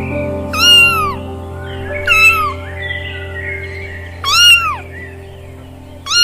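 A cat meowing three times, each call rising then falling in pitch, with another starting at the very end, over steady background music.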